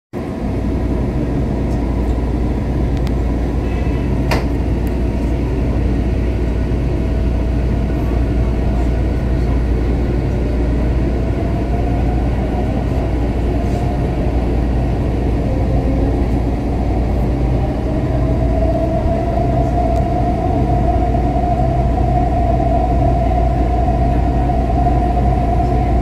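Taichung MRT train heard from inside the cabin: a steady low rumble of the running train, with a motor whine that rises in pitch as the train picks up speed and holds steady in the second half. One short click about four seconds in.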